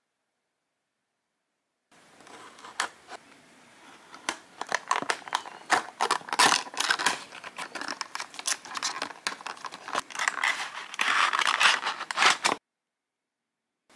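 Cardboard and plastic toy packaging being opened by hand: the box's top flap crackling and tearing as it is prised open, then a thin plastic tray crinkling and scraping as it is pulled out, with many sharp clicks. It begins about two seconds in and cuts off suddenly a little before the end.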